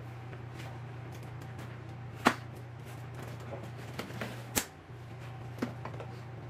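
Sharp clicks and knocks from a baby swing's tubular frame legs being fitted into the seat housing: one loud snap about two seconds in, then a few lighter knocks past the middle, over a steady low hum.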